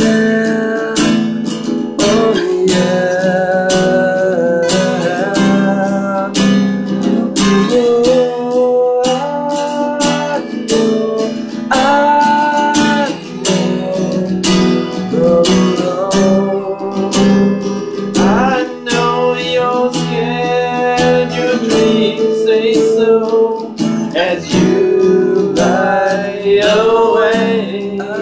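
Two acoustic guitars strummed together in a steady rhythm, with a man's voice singing over them.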